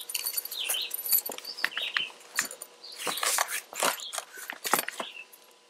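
Handling noise of a multi-tool being pulled out of its nylon belt pouch: a run of short rustles, scrapes and clicks, busiest in the second half.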